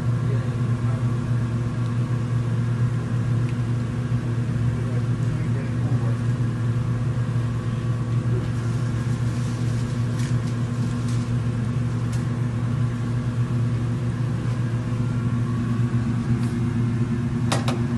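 Steady low electrical hum of kitchen machinery, with a few faint metallic clinks from metal skewers being threaded with marinated chicken.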